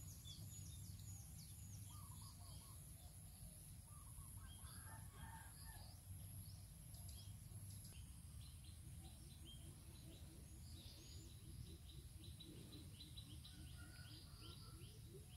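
Faint outdoor ambience of small birds chirping: many short high calls throughout, with a lower, rapidly repeated sound joining from about nine seconds in, over a steady low rumble.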